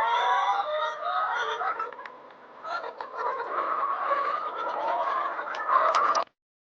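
A flock of layer hens clucking and calling over one another in a dense chorus. It thins briefly about two seconds in, then swells again and cuts off abruptly near the end.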